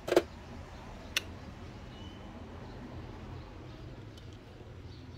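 Two sharp clicks, a loud one at the start and a lighter one about a second later, over a low steady hum.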